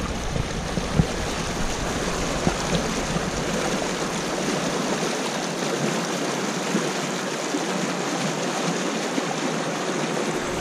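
Shallow stream rushing over small rapids: a steady, even rush of water.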